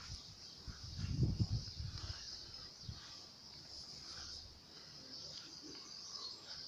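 Outdoor ambience: a steady high-pitched hiss, with a few low rumbling thumps in the first two seconds.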